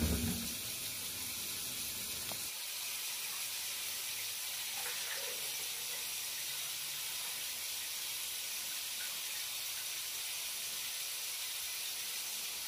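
Cold water running steadily from a kitchen tap over a raw whole chicken and into a stainless steel sink and metal colander: an even, unbroken hiss of a chicken being rinsed.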